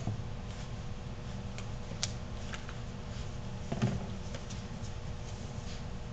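Five-week-old bullmastiff puppies moving about: faint scattered clicks and a soft thump about four seconds in, over a steady low hum.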